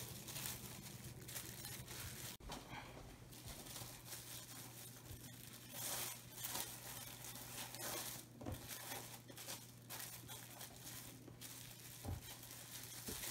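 Plastic cling wrap crinkling and rustling faintly as hands roll a log of soft topping dough in it, over a steady low hum.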